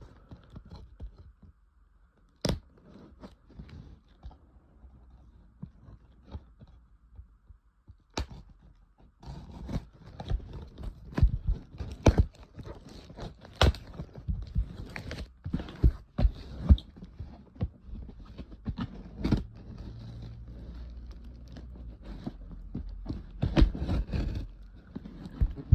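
Close handling noises of a cardboard parcel being opened with a bayonet: irregular knocks, clicks, scraping and rustling. They are sparse at first, with two sharp clicks, then come thick and fast from about nine seconds in.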